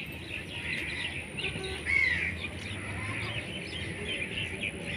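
Many birds chirping and calling together in a dense chorus, with one louder arched call about two seconds in.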